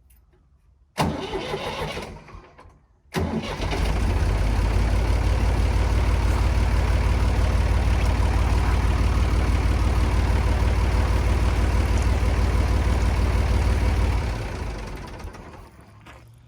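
Backhoe loader engine being started: a first short try about a second in that dies after two seconds, then it catches and runs steadily at idle for about ten seconds before being shut off and winding down.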